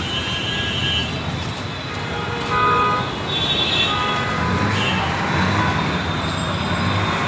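City street traffic noise, a steady rumble of engines, with several short vehicle horn toots.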